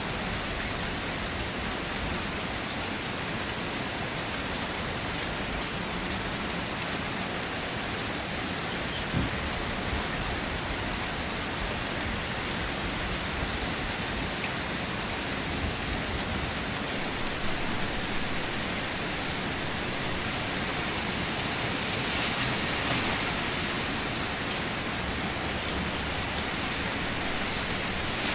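Steady rain falling on standing water and a wet concrete ledge: a continuous even hiss, with a few louder single drops here and there.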